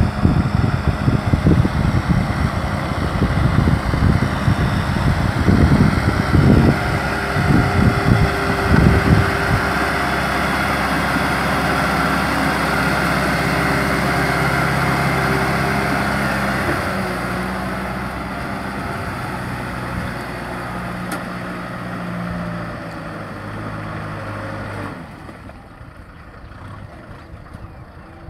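Kubota M6040 tractor's diesel engine running under load as it drags a rotary tiller through flooded paddy mud, with irregular low thumps over the first ten seconds. The engine drone fades as the tractor moves away and drops off sharply near the end.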